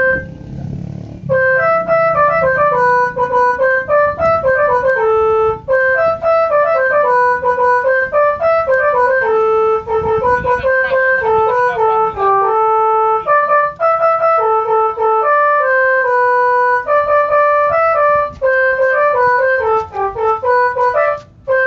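Multi-tone 'telolet' bus horn playing a quick melody of clear, steady notes. The tune starts about a second in and breaks off briefly a few times, over a low rumble.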